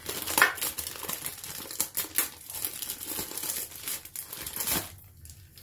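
Clear plastic bag crinkling and rustling as a braided clutch hose is pulled out of it by hand. The crinkling dies down near the end.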